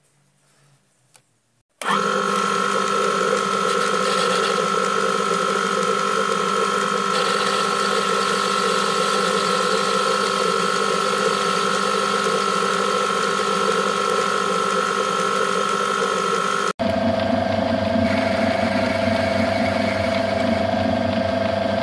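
Small metal lathe running steadily, its motor and gear train giving a whine made of several steady tones. It starts about two seconds in after a few faint handling clicks. About three-quarters of the way through, the sound breaks off and at once returns with a different, lower whine.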